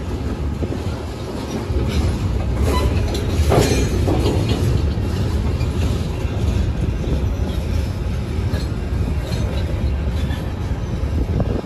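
CN freight train's boxcars and tank cars rolling past: a steady low rumble of steel wheels on the rails with clattering over the joints. A brief metallic wheel squeal comes about three and a half seconds in.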